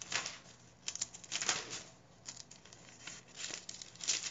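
Bible pages being turned by hand: a string of quick, irregular papery rustles.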